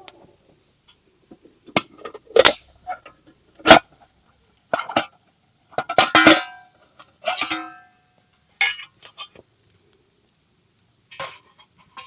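Metal camp cookware being handled: about a dozen separate clinks and knocks, some ringing briefly, with quiet gaps between them.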